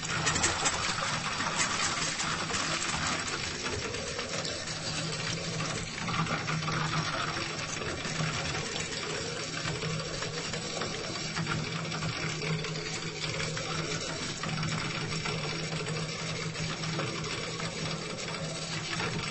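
Faucet running with a poor, weak water flow: a steady rush of water with a fast, uneven rattle in it and a steady low hum beneath.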